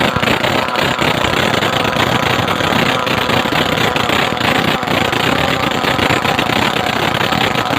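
Robin NBT415 brush-cutter engine running steadily at a fast, harsh firing rate, deafeningly loud, apparently with its muffler off.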